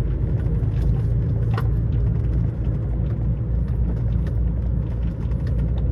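Lorry engine and road noise droning steadily while driving, heard from the cab, with a few light clicks or rattles.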